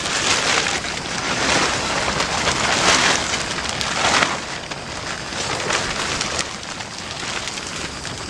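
Plastic tarp rustling and crinkling as it is spread over a shelter frame, swelling louder about three and four seconds in.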